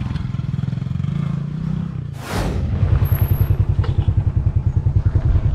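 A small engine running with a low, steady note. About two seconds in there is a brief rushing noise, after which the engine sound is louder and pulses rapidly.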